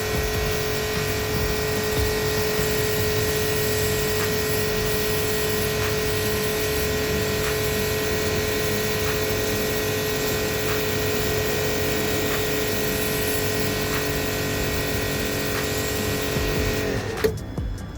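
Electric pressure washer pump running steadily with a steady hum. About a second before the end it winds down and cuts out briefly, then starts again, as when the spray trigger is let go and squeezed.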